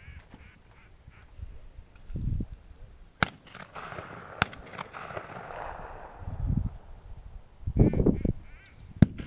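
A duck call blown in a quacking series from the gunner stations as hunt-test marks are thrown. Three sharp cracks of distant shots stand out, about three seconds in, again a second later, and near the end.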